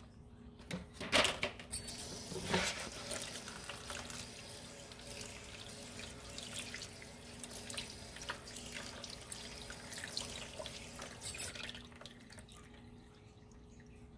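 Kitchen tap water running and splashing into a sink, fading out near the end. A few sharp knocks and crinkles of plastic wrap come in the first couple of seconds.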